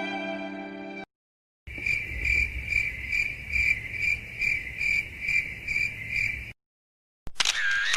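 Crickets chirping in an even rhythm, about two and a half chirps a second: the stock 'awkward silence' crickets sound effect. It starts shortly after a sad violin phrase ends and stops abruptly, and a buzzer begins near the end.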